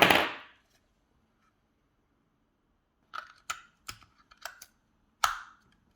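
Plastic mini smoke alarm being handled during setup: a short scraping rustle, then after about three seconds of silence a run of six sharp plastic clicks and taps over about two seconds.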